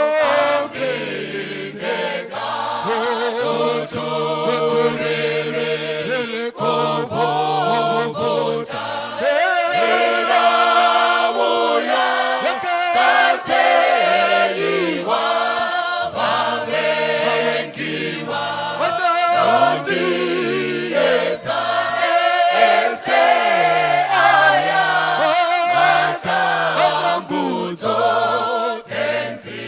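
A group of voices singing a hymn together, with held notes and a steady low part underneath.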